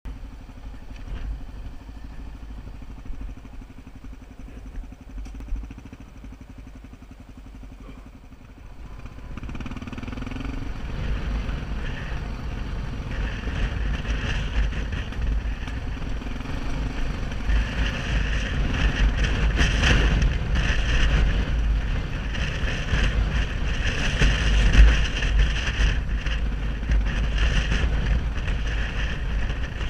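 Motorcycle engine running quietly at low revs, then about ten seconds in a brief rise in engine note as the bike picks up speed, with louder wind and tyre noise on the dirt road from then on.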